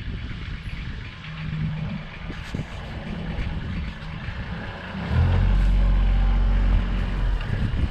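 Small excavator's diesel engine running, growing much louder and steadier about five seconds in.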